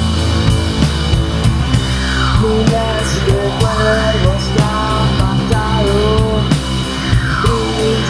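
Rock band recording: a drum kit keeping a steady beat under a full band. A wavering melodic line comes in about a third of the way through.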